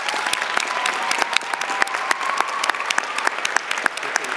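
Applause: many people clapping steadily, with no break.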